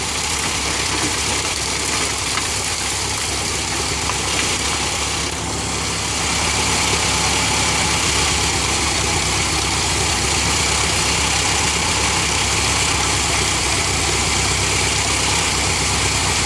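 Antique belt-driven corn sheller running, powered by a tractor engine over a flat belt, with a steady mechanical clatter and engine hum that get a little louder about six seconds in as corn is fed in.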